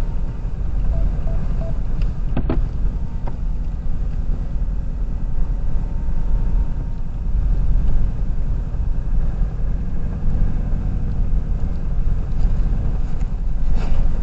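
Nissan Navara ute on the move, heard from inside the cab: a steady low rumble of engine and road noise. There is one short click about two and a half seconds in.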